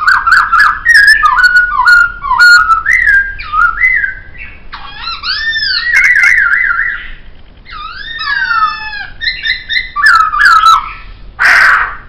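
Poksay (laughingthrush) singing: a fast, varied run of loud whistled phrases that slur up and down and warble, with a short harsh note near the end.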